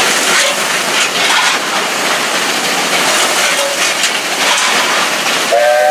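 Cab noise of a class 19D steam locomotive on the move: a steady loud rush from the open firebox and the working engine, with scattered knocks and scrapes. Near the end the locomotive's steam whistle starts, a chord of several steady tones.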